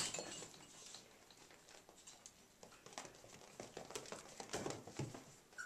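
Faint, scattered scratching and tapping of puppies' claws pawing at a glass pane and scuffling on a towel.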